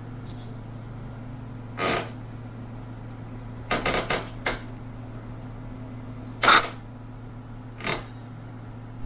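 Several short scuffing sounds, each a fraction of a second long, at uneven gaps over a steady low hum. There is a quick cluster of them about four seconds in.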